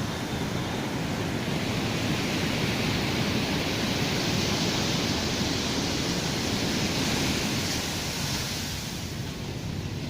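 Sea waves on a beach: a long surge of surf that builds about a second and a half in and eases off near the end.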